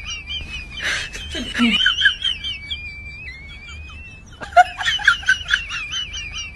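A comic background sound effect of high-pitched, chirping giggles and squiggly whistles that repeats, with a short falling slide about a second and a half in.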